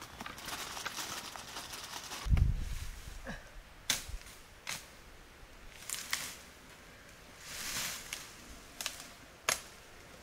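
Dry wood being cut and broken in brush: a few sharp cracks of a blade striking or branches snapping, several seconds apart, with rustling of dry twigs in between. A low thump comes about two seconds in.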